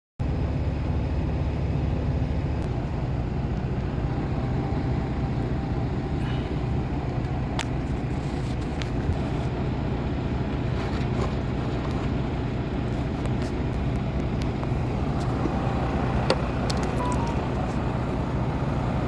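Semi-truck on the move: a steady low engine and road rumble, with a few faint clicks.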